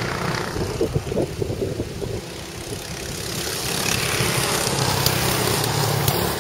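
Go-kart engines buzzing as karts race round the track, getting louder from about halfway through as one comes closer.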